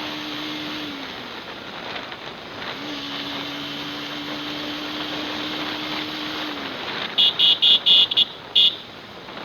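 Motorcycle ride at speed recorded through a microphone improvised from headphones: steady wind and road noise, with a held tone that falls away about a second in, returns about three seconds in and falls again near the end. About seven seconds in, a quick run of short horn beeps.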